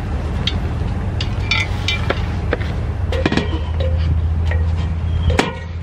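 Metal clinks and knocks as a Mantus roll-bar anchor is picked up and carried up an aluminium ladder, a dozen or so sharp taps scattered through. Underneath is a steady low rumble that drops a little near the end.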